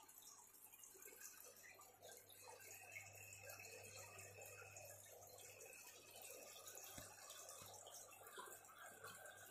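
Faint trickling aquarium water over a low steady hum, near silence.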